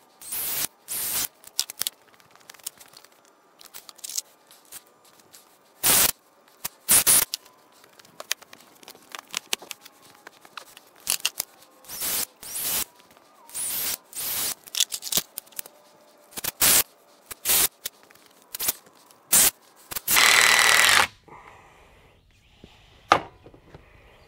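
Cordless drill running in many short bursts, driving screws into a wooden frame, with one longer run near the end followed by a sharp knock.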